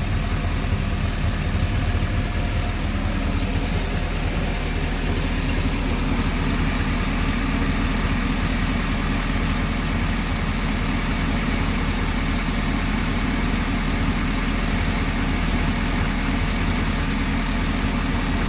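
Engine idling steadily, running with newly replaced intake manifold and exhaust riser gaskets. Its note rises a little about four seconds in, then holds steady.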